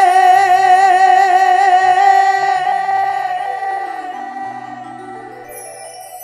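A male singer holds one long note with vibrato through a PA, which fades away over the last few seconds, over low accompanying keyboard notes that change pitch.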